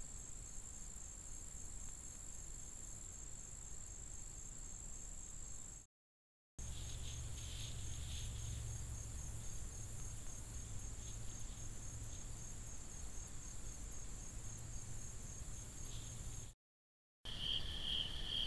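Outdoor insect chorus: a steady, high-pitched trilling runs under two clips, with a low hum added in the middle clip. It breaks off twice with dead silence at the cuts. In the final night clip a lower, evenly pulsing cricket-like chirping takes over.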